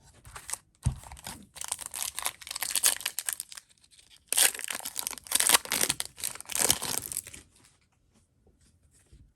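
Foil wrapper of a trading-card pack being torn open and crinkled by hand, in two bouts of crackly rustling, the second the louder; it stops about two seconds before the end.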